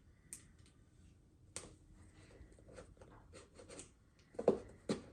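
A taped cardboard shipping package being handled and its packing tape picked at and pulled: scattered light scrapes and crackles, with two louder scrapes near the end.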